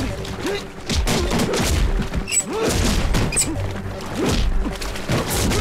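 Film fight sound effects: a rapid string of punches, thuds and crashes, with short shouts or grunts, over a background score.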